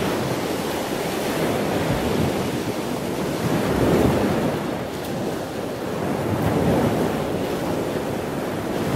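Ocean surf breaking and washing in, rising and falling as each wave surges in every few seconds.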